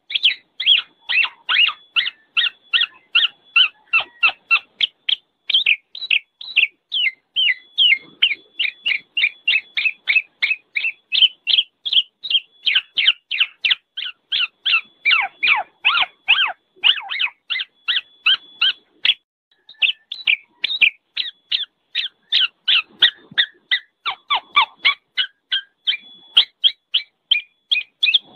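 Black-naped oriole (kepodang) giving its noisy chattering call: short notes repeated rapidly and evenly, about three to four a second, with one brief break about two-thirds of the way through.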